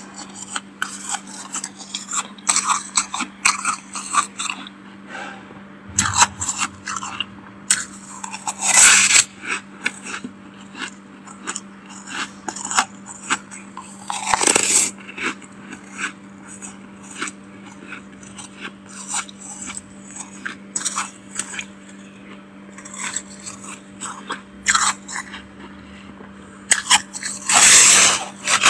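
Freezer frost crunching in rapid dense crackles, with louder crunches about nine seconds in, midway through and again near the end, over a steady low hum.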